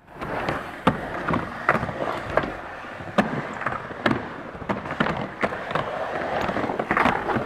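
Skateboard wheels rolling on smooth concrete, with a dozen or so sharp clacks and knocks of boards striking the ground scattered throughout.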